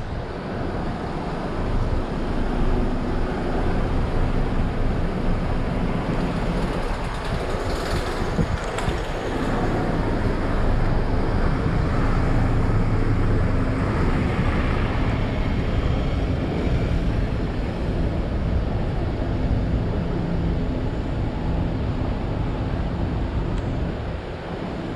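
City road traffic: a steady rumble of passing vehicles, swelling in the middle as a heavier engine goes by.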